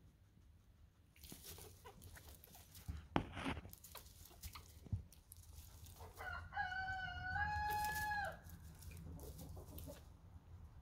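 A rooster crowing once, about six seconds in: one long call of about two seconds that steps up in pitch partway through. Before it come scattered rustling and a few knocks, one sharp knock standing out.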